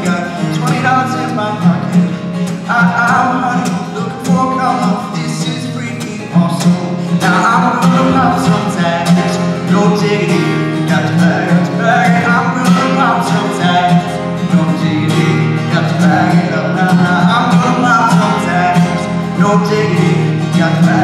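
Taylor 114ce acoustic guitar strummed in a steady rhythm, with a young man singing over it.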